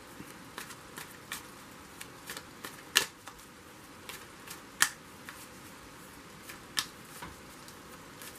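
Irregular sharp clicks and taps, two much louder than the rest about three and five seconds in, over a steady soft hiss.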